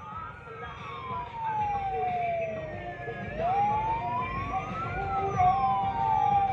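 Vehicle siren on wail: one tone falls slowly for about three seconds, climbs back over a second and a half to its peak about five seconds in, then starts falling again. Under it, the low rumble of slow-moving vehicle engines.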